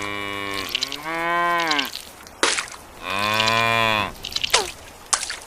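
Cow mooing: a long moo ends about half a second in, then two more long moos follow, about a second in and about three seconds in. A few short clicks fall between the calls.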